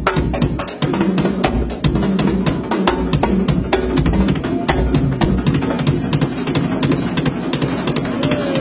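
Drum kit played live in a fast, steady rhythm, with strikes several times a second over a heavy bass-drum beat.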